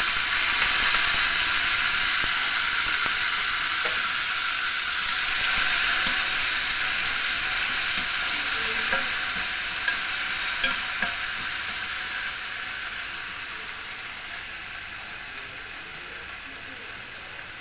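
Chopped tomato sizzling in hot oil with mustard seeds and cumin in a stainless steel pan, a dense hiss that slowly dies down as it goes, with a few light clicks of a spatula against the pan.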